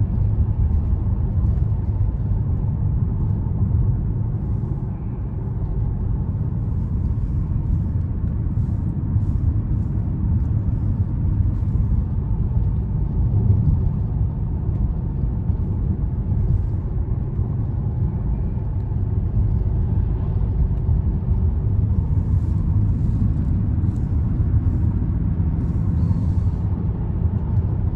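Steady low rumble of a car's road and tyre noise heard from inside the cabin, cruising at about 40 mph.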